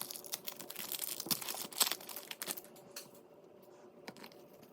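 Foil wrapper of an Upper Deck hockey card pack being torn open and crinkled, a dense crackling for the first two and a half seconds or so, then quieter scattered clicks of the cards being handled.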